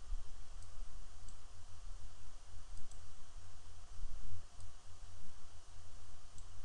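A few faint computer mouse clicks spread over a steady low hum.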